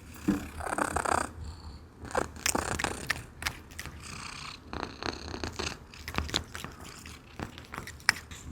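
Domestic cat purring steadily while eating fish, with irregular wet smacking and clicking chewing sounds over the purr.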